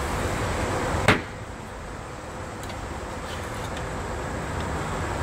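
The lid of a steel barrel grill shut with a single sharp metal bang about a second in, over a steady background hiss, followed by a few faint clicks.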